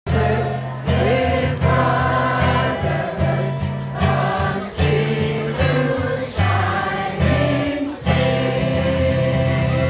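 A choir of adults and children singing a song to strummed acoustic guitar. Deep bass notes underneath change about every second.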